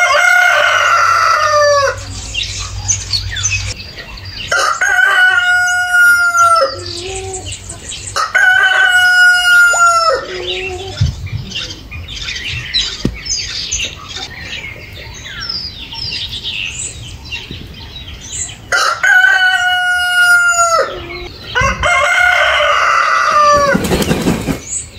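Rooster crowing five times, each crow a long call of about two seconds that drops in pitch at its end, with small birds chirping between the crows. Near the end, a goose flaps its wings briefly.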